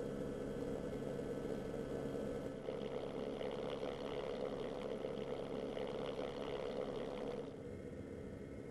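Engines running steadily, a constant hum with a brighter, rougher layer on top from about two and a half seconds in until near the end.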